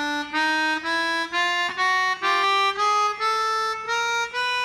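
Melodion keyboard harmonica playing an ascending chromatic scale, one semitone per note, about two and a half notes a second, each note separately tongued. It shows sharps raising a note by a half step.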